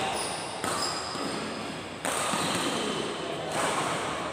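Reverberant badminton hall: two sharp racket hits on a shuttlecock from a rally on another court, about a second and a half apart, each ringing on in the hall.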